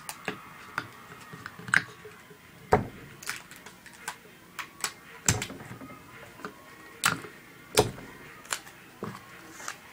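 A sheet of paper being rolled up tightly by hand on a table, with irregular sharp crinkles and clicks of the paper.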